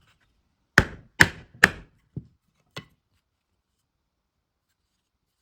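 Hammer tapping on wood: three sharp taps about half a second apart, then two lighter ones.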